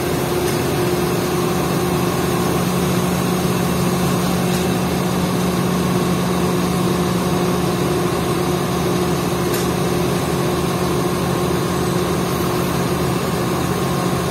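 Mobile crane's diesel engine idling steadily, an even low drone with no change in speed.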